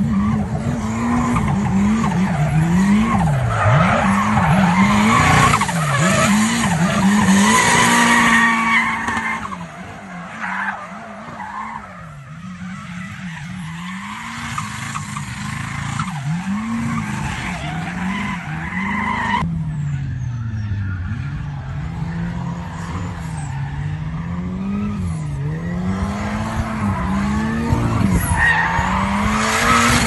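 Drift car engine revving hard, its pitch rising and falling over and over, with tyres screeching as the car slides sideways. The sound changes abruptly about two-thirds of the way through, then the revving carries on.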